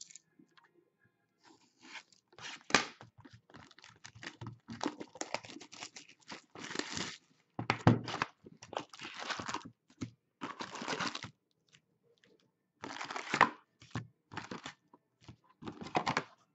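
A sealed 2016-17 Upper Deck Series 2 hockey card box being torn open by hand: ripping and crinkling of its wrapping and cardboard in irregular bursts.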